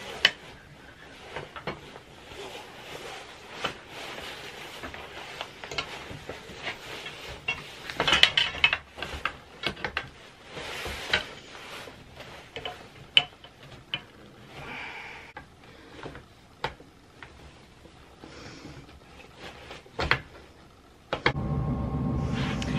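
Bassinet frame parts being handled and fitted together: rubbing and rustling with scattered sharp clicks as the quick-connect connectors are pushed in and snapped into place. Near the end, music starts abruptly.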